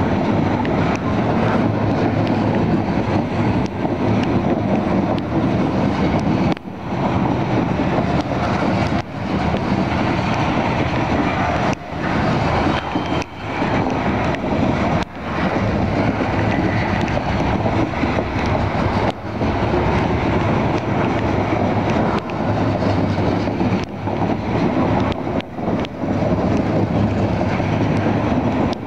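CSX coal train, mostly empty coal cars, rolling past close by: a steady rumble of steel wheels on the rails, with brief dips in loudness every few seconds.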